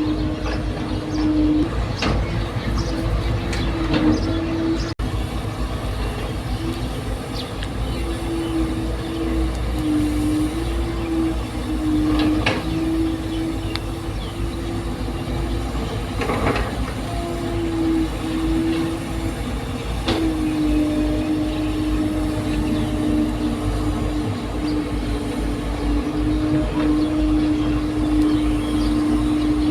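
Excavator's diesel engine running with a steady low rumble and a droning hum that shifts slightly in pitch. A few sharp knocks stand out.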